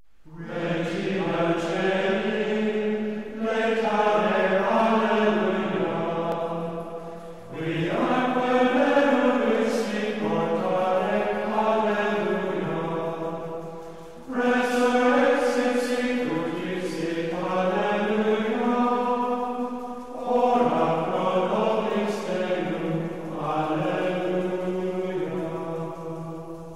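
Chanted singing in a low voice, in about five long held phrases of several seconds each, with the pitch gliding between notes.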